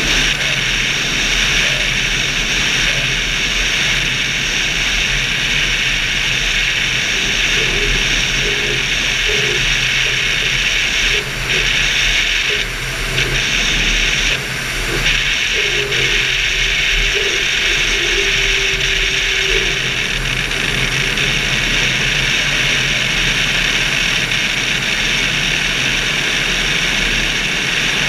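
Steady rush of airflow over a wing-mounted camera in flight, a constant hiss with a faint low hum beneath, dipping briefly a few times about halfway through.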